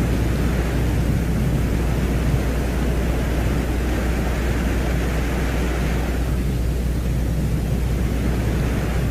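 Steady low rumble under an even hiss, with no distinct events: the audio presented as the Venera 14 lander's recording from the surface of Venus.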